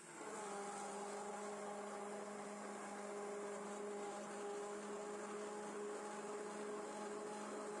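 Electric stick blender running steadily at one speed, its motor giving a constant pitched whine as it purees boiled spinach and milk.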